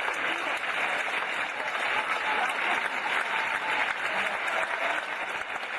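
Theatre audience applauding steadily as the cast takes curtain-call bows.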